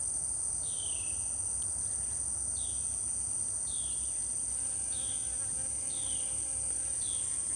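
A bee buzzing around a luffa bloom, heard as a faint hum from about two and a half seconds in. Underneath runs a steady high-pitched insect chorus, with short falling chirps repeating about once a second.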